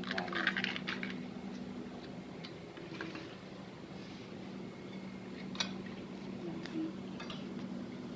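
Dishes, cutlery and aluminium foil trays being handled as food is served: scattered rustling and clinks, with a few sharp clicks in the second half, over a steady low hum.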